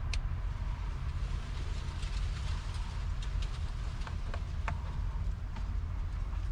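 Scattered light clicks and small rattles of hands working loose a plastic wiring connector at the steering column, over a steady low rumble.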